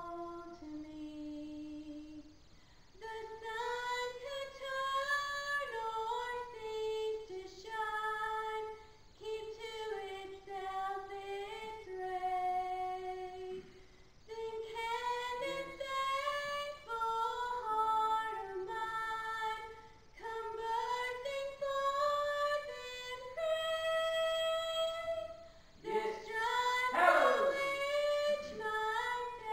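A woman singing solo and unaccompanied into a handheld microphone: a single melodic line of held and sliding notes in phrases broken by short breaths. A louder, swooping phrase comes near the end.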